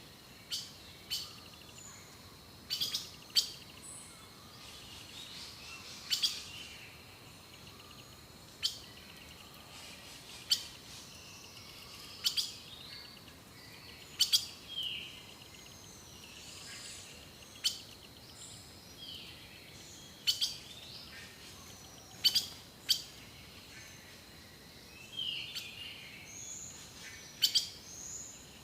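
Wild birds calling and singing: short, sharp chips every second or two among chirps and falling whistled notes, over a faint steady high tone.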